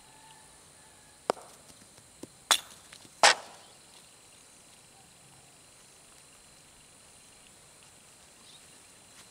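Sharp wooden knocks of a woodball mallet against the ball: three loud ones spread over about two seconds, with a few lighter taps between them. A faint steady high insect drone runs underneath.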